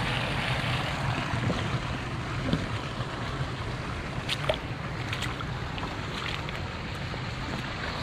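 Steady rushing noise of flowing water, with wind rumbling on the microphone and a few faint ticks.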